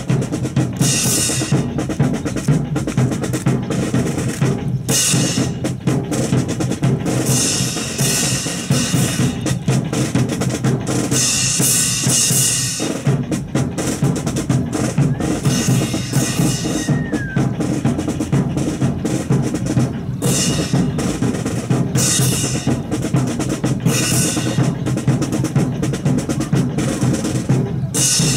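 Drum-driven music, with snare and bass drum keeping a steady march beat and several brief bright crashes.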